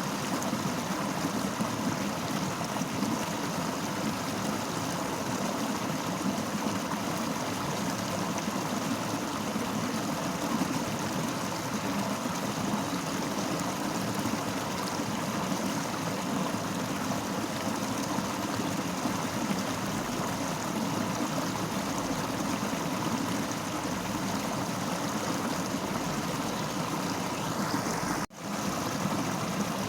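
Fast-flowing river rushing steadily, with a brief sudden gap near the end.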